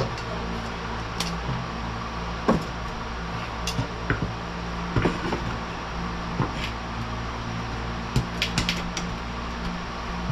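Scattered clicks and light knocks of hand work on a metal vent-window frame while old rubber is worked out of it, over a steady low hum. The loudest knock comes about two and a half seconds in, and a quick cluster of clicks comes near the end.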